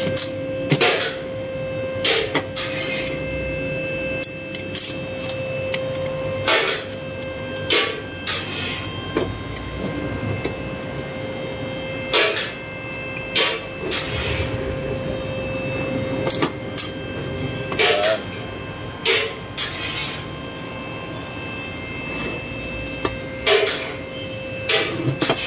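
Turbocharger parts being handled on a metal workbench: irregular clinks and knocks as the compressor housing is moved and set down and a small wrench works a bolt, over a steady background hum.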